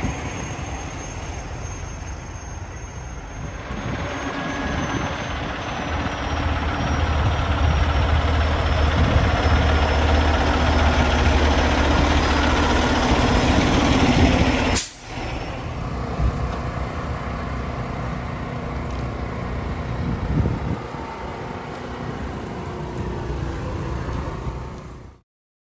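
Diesel engines of semi-trucks running close by, with a heavy low rumble that grows louder a few seconds in and holds. About halfway through, the sound breaks off abruptly and the truck noise carries on at a lower level.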